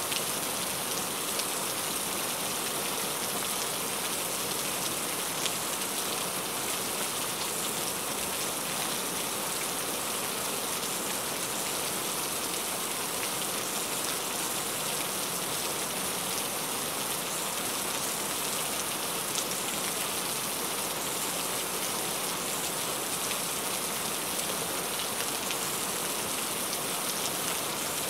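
Heavy rain falling steadily: an even hiss, with a couple of slightly louder single drop hits.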